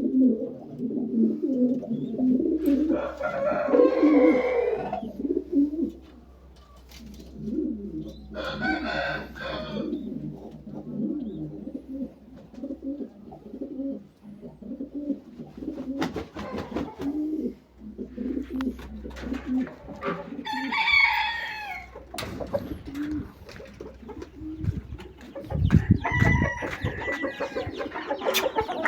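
Domestic pigeons cooing steadily in a loose repeating rhythm. An aseel rooster's louder calls break in three times, each lasting about two seconds. There is a low thump near the end.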